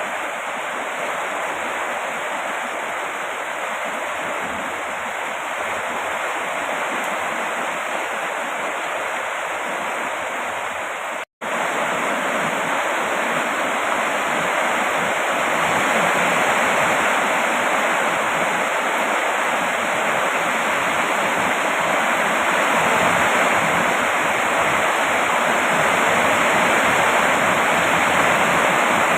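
Steady rain falling, an even hiss. It cuts out for a split second about eleven seconds in and comes back slightly louder.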